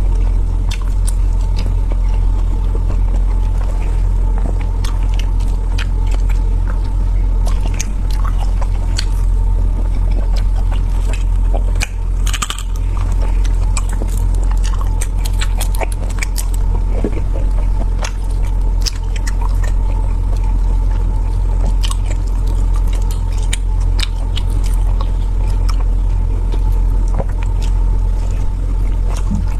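Close-up chewing and biting of food: many short wet clicks and crackles, denser about midway, over a loud steady low rumble.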